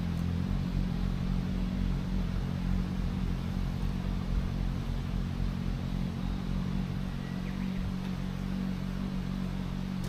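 Motor vehicle engine idling: a steady low rumble.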